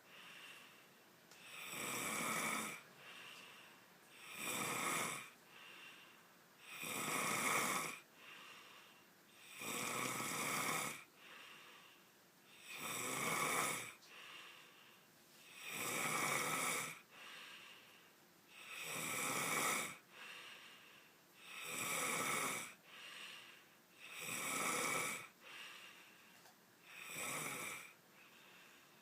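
A person snoring loudly in a steady rhythm: about ten snores, one every three seconds or so, with a fainter sound between each.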